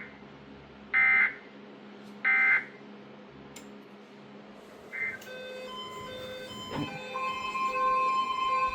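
Three short bursts of SAME digital data tones, about a second apart, closing a NOAA Weather Radio warning: the end-of-message code. After a short gap, music with a steady beat comes in from about five seconds, with a steady high tone held under it from about seven seconds.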